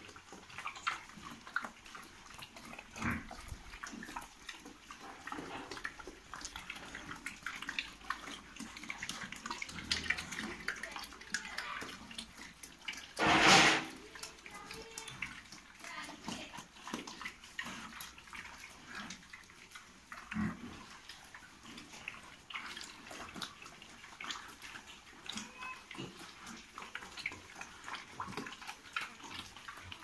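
Pigs feeding at a concrete trough: a steady run of wet smacking and slurping clicks, with one loud, short burst of noise about halfway through.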